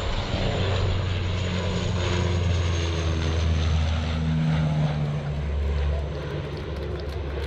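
Propeller aircraft flying past: a steady engine drone with shifting low tones, loudest in the middle and easing a little near the end, over a thin high whine that slowly falls in pitch.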